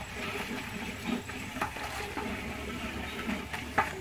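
Duck curry sizzling in a large pot over a wood fire while it is stirred with a long wooden paddle, with a few light knocks.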